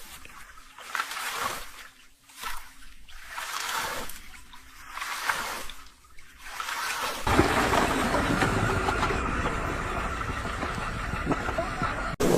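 Water-like rushing noise, like rain or surf, swelling and fading in waves, then becoming a louder, steady rush with a low rumble about seven seconds in.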